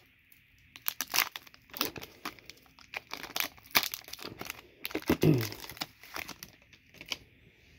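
Foil wrapper of an Upper Deck Artifacts hockey card pack crinkling and crackling in the hands as the pack is opened and the cards are pulled out. It is a dense, irregular run of crackles that stops about seven seconds in.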